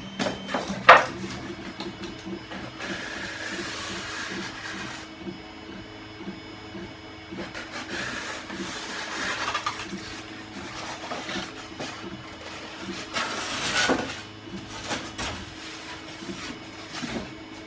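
Cutter knife drawn through Styrodur foam board in several long scratchy strokes, with a sharp click about a second in.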